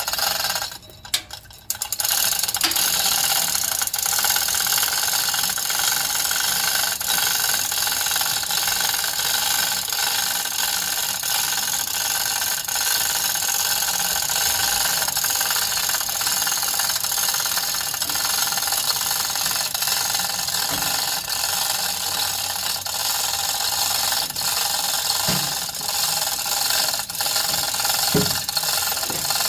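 A powered lift's motor running steadily as it raises a lawn tractor. It starts about two seconds in after a few short noises and runs on with a steady mechanical whine and rattle.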